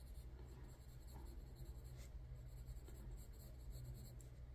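Faint scratching of Prismacolor coloured pencils on paper as fur is shaded in, over a low steady hum.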